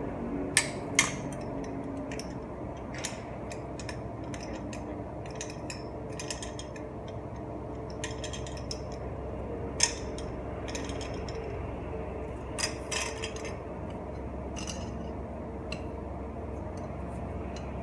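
Scattered metallic clicks and clinks of bicycle crankset and bottom-bracket parts being handled and fitted to a bare steel frame, with a few sharper knocks about a second in, near the middle and about two-thirds through. A steady low hum runs underneath.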